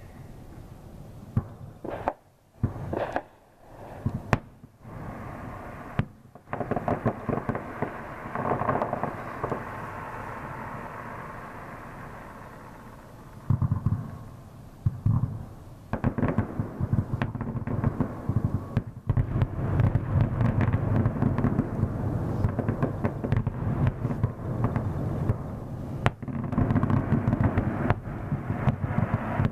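Fireworks bursting and crackling. There are a few separate bangs in the first seconds, and from about halfway through a dense run of rapid pops and crackle.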